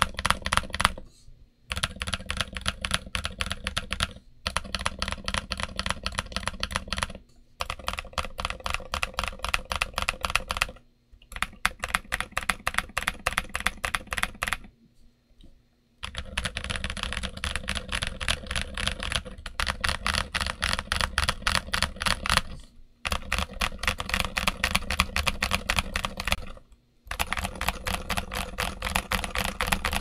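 Typing on a Redragon K530 mechanical keyboard fitted with Gazzew U4Tx tactile switches, double-shot ABS SA-profile keycaps, felt and switch pads. Rapid keystrokes come in runs of about three seconds with short pauses between them; the longest pause falls a little past the middle.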